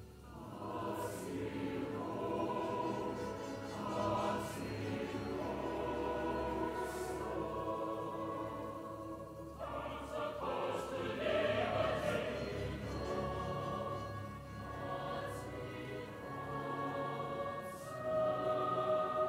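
Large mixed choir with orchestra singing a repeated 'hearts in hope' phrase in sustained chords. About halfway through, the phrase passes from the adult chorus to the youth choir, and children's voices enter above with 'dance our course to liberty'.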